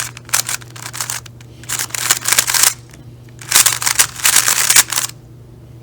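Speed cube being turned quickly by hand: rapid plastic clicking and clacking of the layers in three flurries with short pauses between them.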